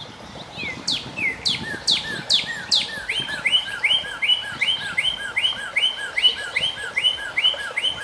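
Northern cardinal singing: a few loud, steeply falling whistles, then a fast run of short two-note phrases repeated about two and a half times a second.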